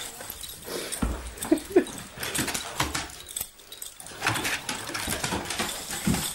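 A dog making two short, close-together vocal sounds about a second and a half in, among clicks and shuffling.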